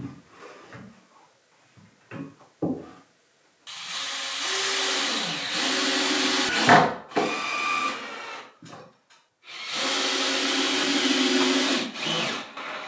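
Power drill running in two long runs of several seconds, its motor pitch rising as each run starts, with a sharp knock in the middle of the first. Light taps and knocks of handling come before it, and a brief burst of the drill near the end.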